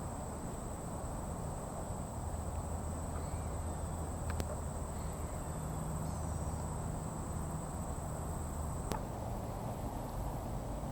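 Insects trilling in one continuous, unbroken high-pitched note over a low outdoor rumble, with two sharp clicks about four and a half seconds apart.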